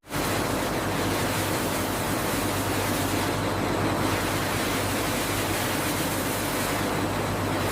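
Steady industrial machinery noise from automated egg-handling equipment: an even hiss with a low hum underneath.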